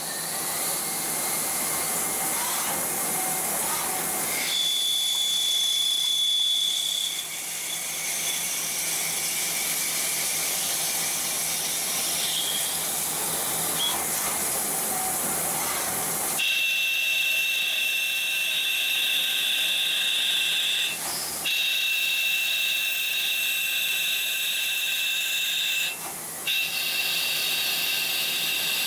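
CNC turret lathe drilling and boring a brass workpiece under flooding coolant: a steady hiss of coolant spray and cutting. A little past halfway a high steady whine from the cut sets in, dropping out briefly twice.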